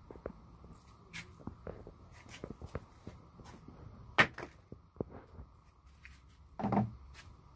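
Cloth rustling and scattered small clicks and knocks as a pile of clothes is handled and sorted, with a sharp knock about four seconds in and a short bump near the end.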